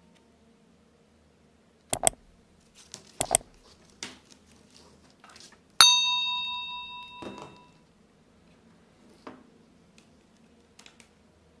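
Two sharp clicks, then a bright bell-like ding that rings out and fades over about two seconds: the notification sound effect of a subscribe-button animation.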